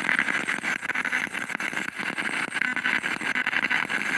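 Spirit box radio scanner sweeping through stations: a steady hiss of static through its small speaker, chopped by rapid clicks as it jumps from channel to channel.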